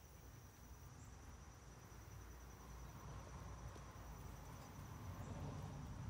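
Faint, steady, high-pitched insect trill, one unbroken finely pulsing note, over a low rumble.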